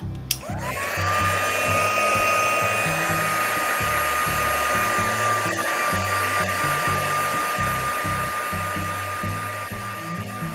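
Handheld craft heat gun switched on with a click, its motor whine rising to a steady high pitch within the first second, then running steadily with a rush of blowing air. It is drying freshly applied acrylic paint on a glass bottle. Background music plays underneath.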